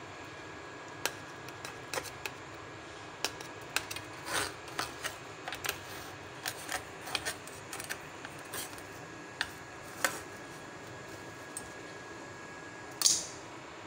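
Knife cutting a pizza in a steel plate: irregular clicks and short scrapes of the blade against the metal, with one louder scrape near the end.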